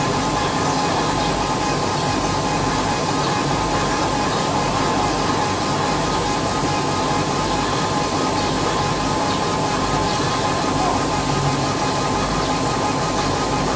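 CO2 laser engraving machine running as it engraves glass: a steady, even mechanical noise with a faint high whine that does not change.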